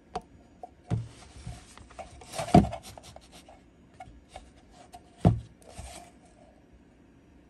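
Handling noise from a small Hertz S8 DSP unit being set down, slid and turned over on a desk mat: rubbing and scraping with a few sharp knocks, the loudest about two and a half and five seconds in.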